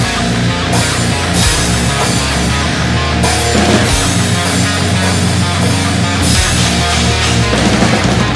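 A metalcore song with distorted guitars and bass, with a drum kit played live over it: fast drum hits under a dense, constant wash of cymbals.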